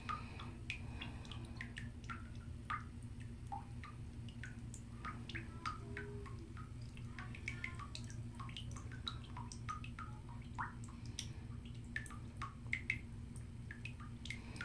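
A faucet dripping into a full bathtub while a bath bomb fizzes in the water. Many small, irregular plinks and pops sound over a steady low hum.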